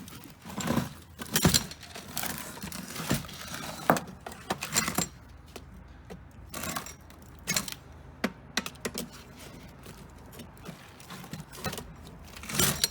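Irregular metallic clinks, scrapes and knocks of hand tools working on a payphone's metal coin box, busiest in the first five seconds and again near the end.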